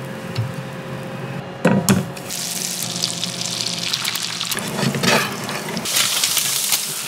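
An egg frying in hot fat in a skillet: a steady sizzle starting about two seconds in, with a couple of short low knocks.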